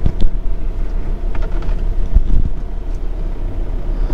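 A car driving slowly along a dirt track: a steady low engine and road drone with a few thumps, one about a quarter second in and another just after two seconds.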